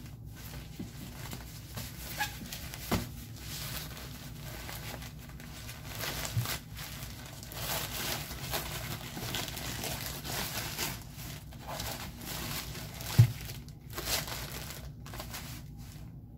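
Plastic-backed adult diaper crinkling and rustling as it is handled, in uneven spells. There is a sharp knock about thirteen seconds in, the loudest sound, and a smaller one about three seconds in.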